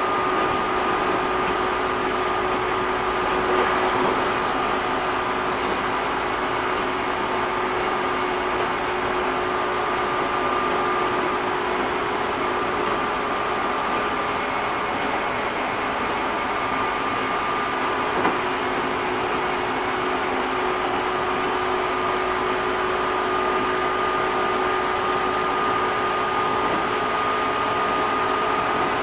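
Running noise inside a JR East 205 series 600 subseries electric train at steady speed: an even rumble and hiss of wheels on rail with a steady whine from the running gear.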